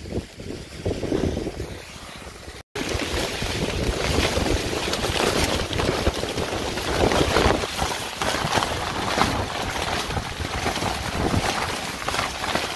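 Heavy rain and gusting wind: a dense, steady rush with wind buffeting the microphone, with nylon tent fabric flapping close by. It is quieter for the first few seconds, then jumps louder after a sudden cut.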